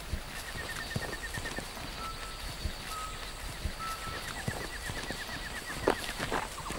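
Outdoor ambience of songbirds: rapid trills and short whistled notes, over the rustle and irregular footfalls of people walking through tall grass, with a sharper knock about six seconds in.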